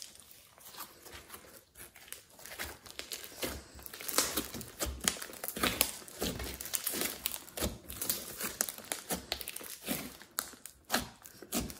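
Hands squeezing, stretching and pressing a large lump of glossy slime mixed with clay, giving dense, irregular sticky crackling and clicking.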